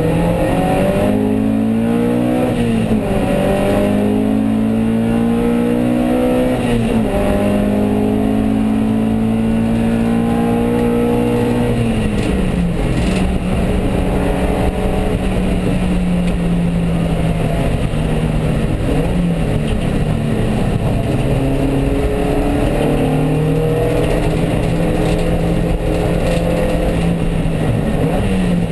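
Alfa Romeo Alfasud race car's flat-four engine heard from inside the cabin, revving up through the gears with quick upshifts at about three and seven seconds. It then eases off at about twelve seconds, runs at steadier revs for a while and climbs again near the end, over a constant hiss.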